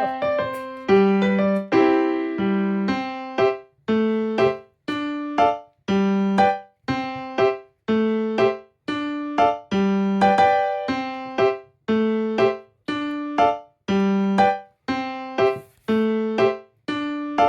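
Background music: a keyboard, electric piano or piano, playing a simple repeating tune. The notes are struck about two a second, and each one dies away before the next.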